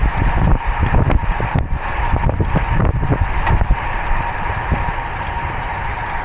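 Wind buffeting the microphone of a handlebar-mounted Insta360 action camera on a road bike at speed, with tyre and road rush underneath. The gusting is choppy at first and settles into a steadier rush about halfway through.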